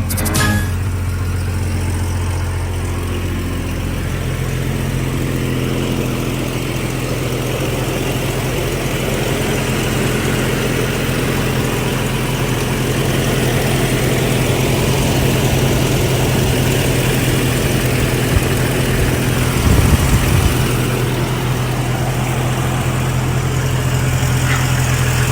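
Jeep Cherokee XJ engine idling steadily, with a short louder patch about twenty seconds in.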